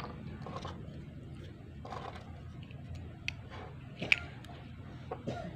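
Small objects being picked up and handled on a wooden tabletop: light taps and clicks, the sharpest about four seconds in, over a low steady hum.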